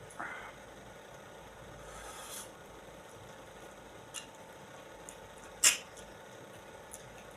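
Mouth sounds of someone eating soft, juicy fruit: brief wet slurps and smacks, scattered small clicks, and one sharp, loud click about two-thirds of the way through.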